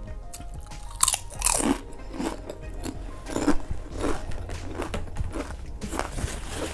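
Cool Ranch Doritos tortilla chips being bitten and chewed. Loud crunches come about a second in, again at one and a half seconds and at three and a half seconds, then shorter, softer chewing crunches follow.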